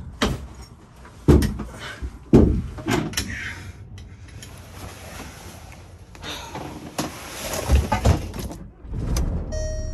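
Sharp knocks and clunks of metal hardware and the wooden floor as lift springs are fitted to a VW Beetle's pop-top camper roof, with rustling of fabric between the knocks. A beeping chime starts near the end.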